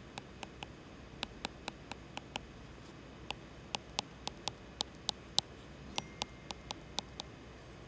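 Stylus tapping on an iPad's glass screen during handwriting: quick, irregular clicks in small clusters, with a pause of about a second near the middle.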